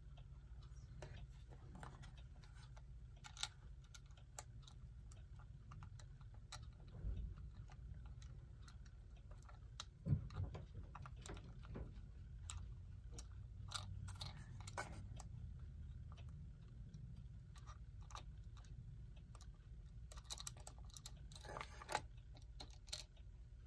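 Scattered faint clicks and light taps of small metal parts and a hand tool as gears are lifted out of a 1930s Continental electric clock movement and set down, over a low steady hum. The sharpest click comes about ten seconds in, with further bunches of taps past the middle and near the end.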